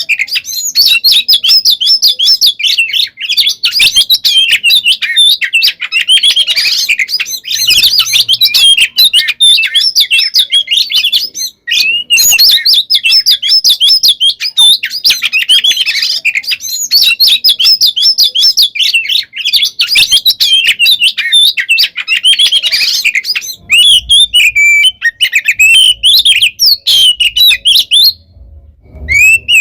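Oriental magpie-robin (kacer) singing its loud, fast, non-stop fighting song: a dense run of rapid chirps and whistles, pausing briefly about twelve seconds in and again near the end.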